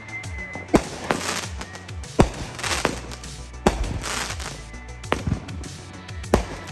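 Consumer fireworks going off at close range: a ground-launched firework sends up shells in a string of sharp bangs, about seven or eight spread roughly a second apart, with hissing and crackling around the launches.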